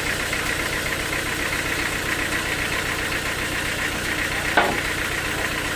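Sawmill engine running steadily with an even low chugging, and a single short sharp clack about four and a half seconds in.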